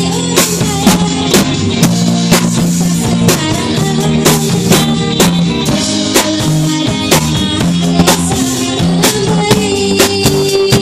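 A live rock-pop band playing, with a drum kit keeping a steady beat of about two hits a second under electric and acoustic guitar.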